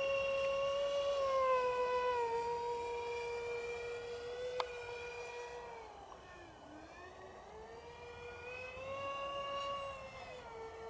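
The electric motor of an RC Su-35 model jet in flight gives a steady, siren-like whine. Its pitch steps down about two seconds in and sinks to its lowest about six and a half seconds in, where the sound is quietest. It then climbs back and drops again near the end. There is one sharp click about four and a half seconds in.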